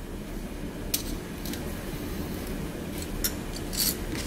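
Pliers being picked up and handled against a steel lure wire: a few sharp light metal clicks and a short scrape near the end, over a low steady hum.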